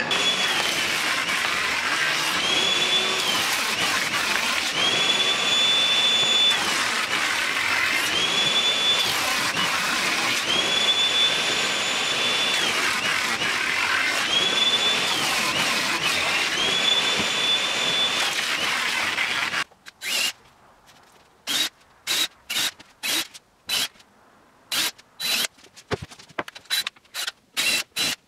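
Table saw running, its high whine dipping and coming back every two to three seconds as it cuts. It stops about twenty seconds in. Then a cordless drill runs in short bursts, driving screws into a plywood top, the bursts coming faster near the end.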